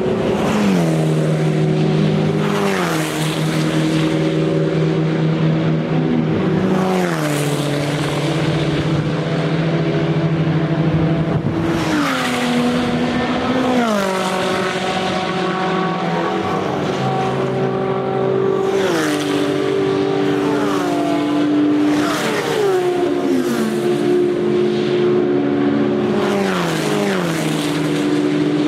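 Race cars with open exhausts passing at speed one after another, about nine times, their loud engine notes overlapping and each dropping in pitch as the car goes by.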